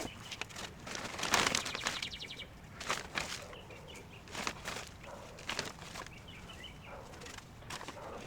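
Rustling and scattered clicks and knocks from hands working a hanging plant basket and drip-irrigation tubing, loudest about a second in, with a few faint bird chirps.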